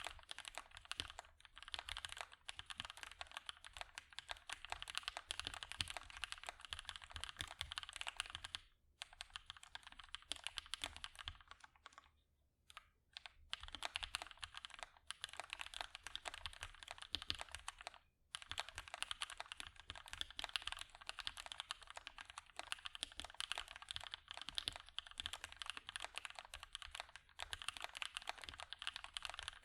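Typing on a Vulcan x KBDFans Maja custom mechanical keyboard with lubed and filmed Gateron Hippo switches, a POM plate and GMK keycaps: a dense run of keystrokes, broken by short pauses about 9, 12 to 13 and 18 seconds in.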